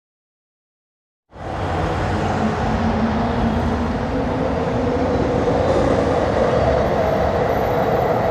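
Silence for about a second, then a steady vehicle rumble starts abruptly and runs on, with a droning hum in it.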